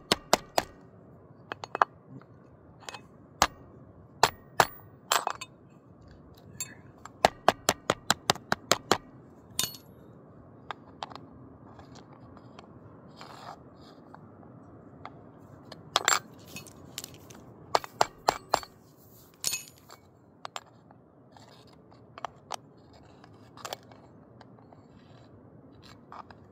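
Quick runs of sharp metallic taps on a miniature railroad rail as it is knocked sideways back into gauge, with a metal gauge bar clinking against the rails. After the runs come a few separate louder knocks.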